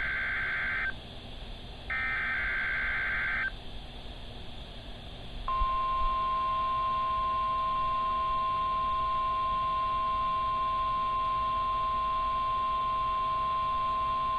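NOAA Weather Radio emergency alert signal received over the radio. First come two screechy bursts of SAME header data, each about a second and a half long with a short gap between them. About two seconds later the steady 1050 Hz Warning Alarm Tone begins and is held for about nine seconds, opening a Required Weekly Test.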